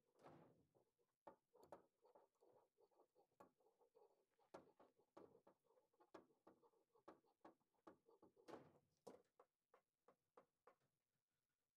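Faint, irregular rustling and light clicks of wiring and a power cord being handled by hand.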